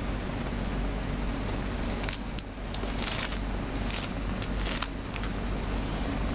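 A steady low rumble and hum underneath, with a cluster of short, crisp rustles and clicks about two to five seconds in, like plastic sheeting being brushed and handled.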